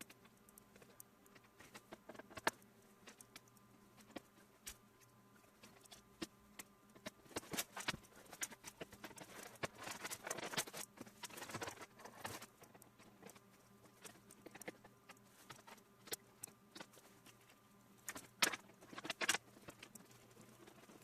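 Scattered clicks, taps and rattles of hard computer parts being handled on a PC case. They come busiest in a run a little before the middle, with two sharper knocks near the end.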